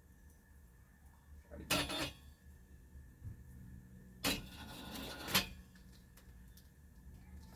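Treadmill motor driving a homemade single-core wire stripper, running with a steady low hum and a faint high whine, broken twice by short noisy bursts, the first just under two seconds in and the second, about a second long, past the middle.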